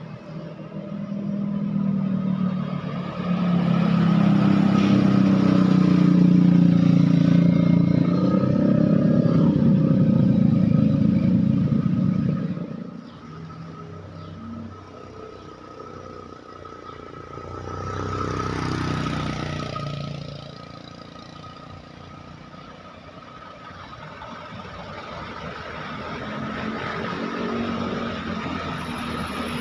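Roadside traffic: a large vehicle's engine passes close by over the first dozen seconds, loud and low, then fades. Another vehicle passes more briefly about two-thirds of the way through, and more traffic builds up near the end; no horn is heard.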